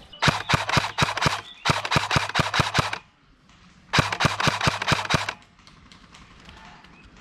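Airsoft electric rifle (AEG) firing three full-auto bursts of rapid sharp pops, each over a second long, with its gearbox motor humming under each burst.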